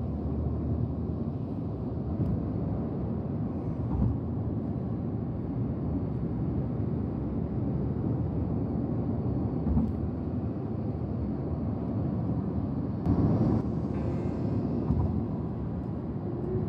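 Steady road and engine noise heard from inside a moving vehicle's cabin, a low, even rumble with a few brief bumps and a louder stretch about three-quarters of the way through.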